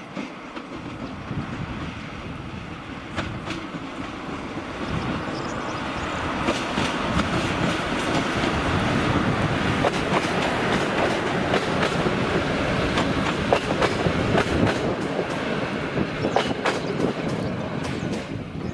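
A train running past on the track, its wheels clicking over the rail joints, growing louder over the first several seconds and easing off slightly near the end.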